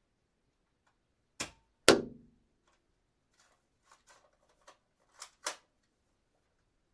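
Darts striking glass: a sharp hit, then a louder one half a second later that rings briefly, followed by a few light ticks and two more knocks near the end.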